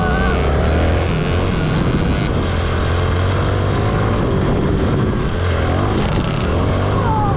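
Dirt bike engine running hard on a motocross track, its pitch rising and falling as the throttle opens and closes: up near the start, dropping near the end.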